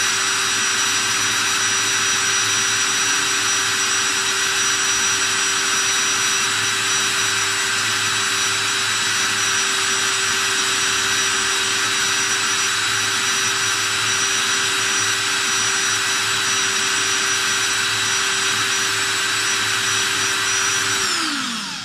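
DeWalt cordless drill running at a steady high speed, spinning a brass rifle case while a polishing cloth is pressed against it. The motor whine holds level, then winds down and stops near the end.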